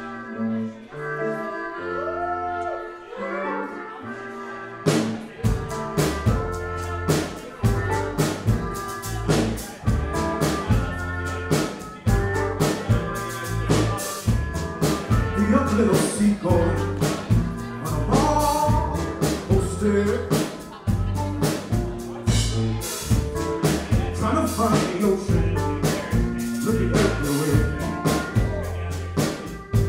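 Live band music: a bowed cello and a trombone play a quiet, sparse opening, then about five seconds in the drums and bass come in and the full band plays on with a steady beat.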